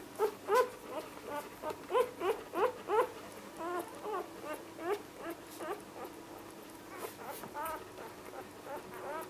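Newborn puppies, a day old, squeaking and whimpering in a quick run of short, rising-and-falling calls. The calls come thick in the first few seconds, then thin out to scattered squeaks.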